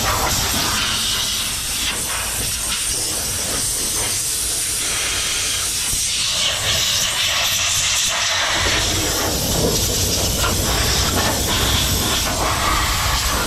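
Compressed-air blow gun hissing as air is blown around a wet, bare engine bay to chase out hidden water, the hiss swelling and easing as the nozzle is moved.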